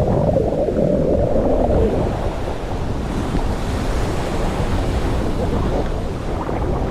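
Ocean surf heard from a camera dunked underwater: a muffled rush of churning water for about the first two seconds, then, once the camera is above the surface, the brighter wash of small waves with wind on the microphone.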